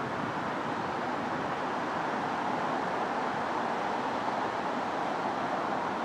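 Steady outdoor background rush with no distinct events, of the kind made by distant road traffic.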